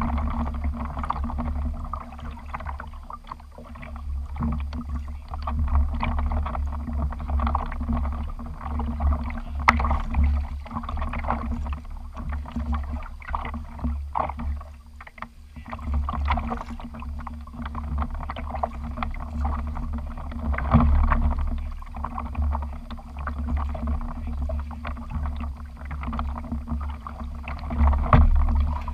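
Water lapping and splashing around a kayak, with a steady low wind rumble on the microphone and a few sharp knocks.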